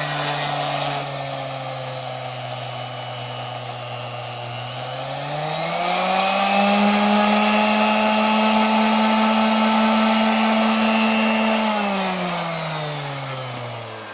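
SKIL 5-inch random orbital sander running on its variable speed dial: the motor whirs at a low setting, spins up to a higher, steady pitch about five seconds in, holds there for about six seconds, then slows down again near the end.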